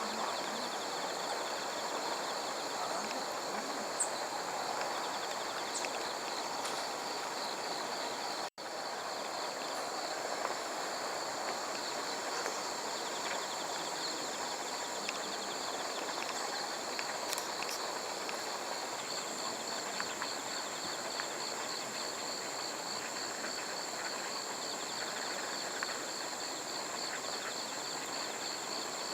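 Insects chirping in a steady, rapidly pulsing high trill, over an even background hiss of outdoor ambience. The sound cuts out for an instant about eight seconds in.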